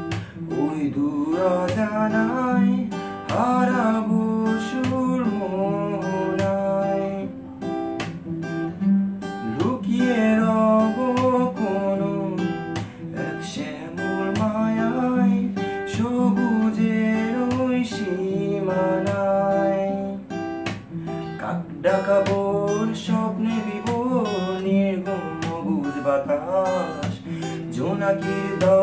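Song played on a strummed acoustic guitar, with a voice carrying the melody over it.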